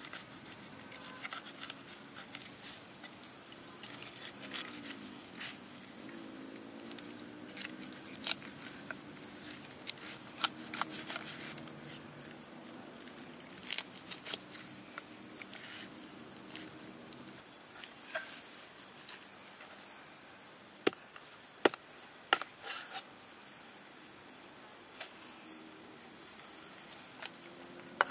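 A cleaver scraping and cutting a whole fish on a wooden cutting board: scratchy strokes with scattered sharp clicks and knocks of the blade. Behind them runs a steady, fast-pulsing chirring of insects such as crickets.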